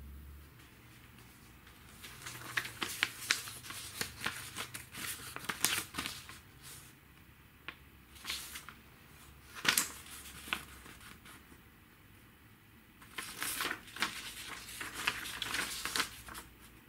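Sheets of paper documents rustling and flapping as they are handled and leafed through, in two busy stretches with a couple of single sharp paper snaps in between.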